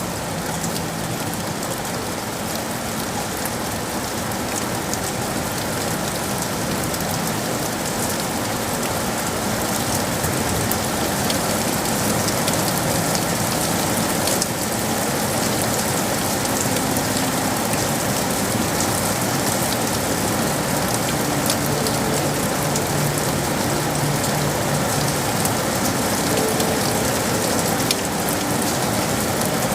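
Steady, dense rain falling on city surfaces, a continuous hiss that grows slightly louder over the first dozen seconds, with a faint low hum coming and going beneath it.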